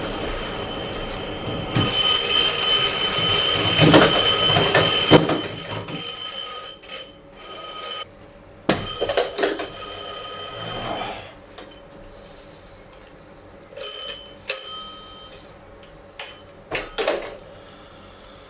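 Many electronic alarm clocks going off together: shrill beeping tones start abruptly about two seconds in and stay loud for a few seconds. After that the beeping comes in shorter bursts that cut in and out.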